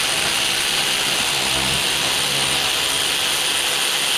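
Cordless power tool spinning a 13 mm socket in one steady four-second run, undoing a rear brake caliper bolt.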